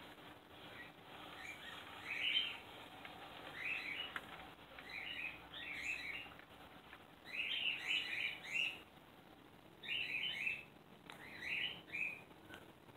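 A small bird chirping in quick clusters of short high notes, every second or two, over a faint steady hum.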